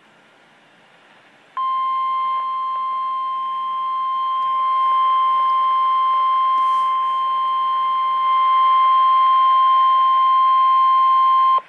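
Emergency alert warning tone: a single steady high tone of about 1050 Hz, the NOAA Weather Radio warning alarm, coming in about one and a half seconds in after faint radio hiss and holding for about ten seconds before cutting off suddenly. It signals a severe thunderstorm warning.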